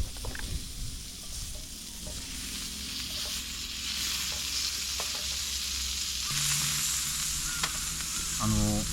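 Beef sizzling on a hot yakiniku grill: a steady frying hiss that grows louder about six seconds in, with a few light clicks.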